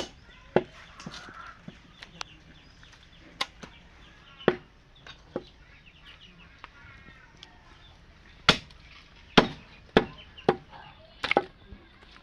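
Heavy blade chopping through a cow's head, bone and meat. About a dozen sharp, irregular strikes, coming quicker and louder in the second half.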